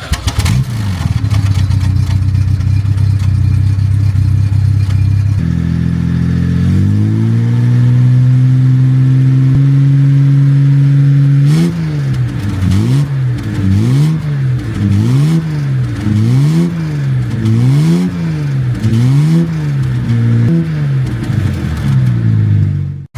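Jaguar Mark II's XK straight-six engine idling, then held at a higher steady speed, then revved up and down in about eight even blips roughly every second and a half. The sound cuts off suddenly near the end.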